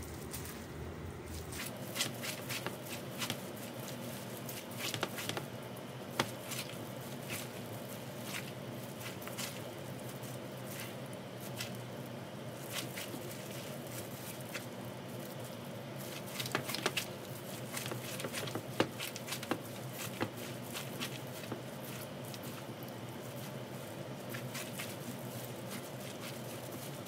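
Scattered light clicks and knocks, a cluster every few seconds, over a steady low hum.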